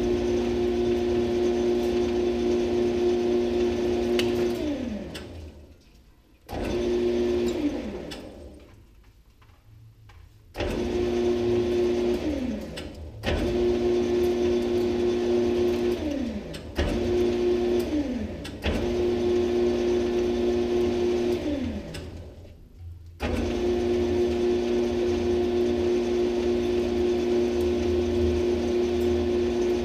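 Metal lathe motor running as its chuck spins a rod winding up copper magnet wire stripped from a sump pump motor. It is switched off and on about six times: each time the whine falls in pitch as the spindle coasts down, then starts again abruptly. Near the end it runs on steadily.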